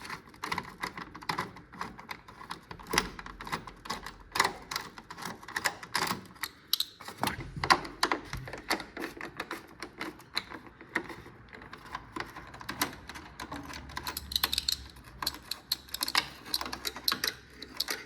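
Hand ratchet with a T27 Torx bit clicking in fast, uneven runs while Torx bolts are undone, with some knocks of the tool and bolts.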